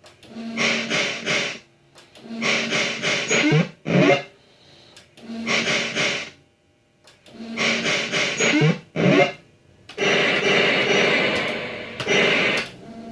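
MPS2 fruit machine's sound system playing a repeated electronic jingle: five bursts of quick, rattling notes, each ending in a falling sweep. The sound comes out harsh and distorted, which the owner takes for a fault in the machine's sound.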